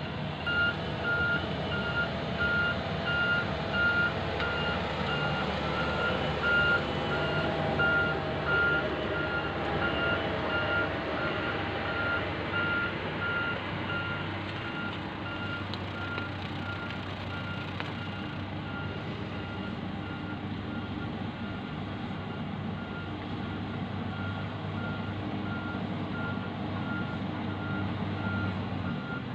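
Diesel engine of a heavy earthmoving machine running while its reversing alarm beeps steadily, about one short beep a second at a single pitch.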